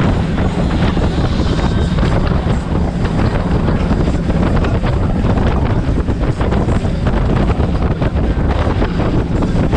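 Heavy wind buffeting on the microphone aboard a speedboat running at high speed, over a steady rushing din of the engines and the spray off the hull.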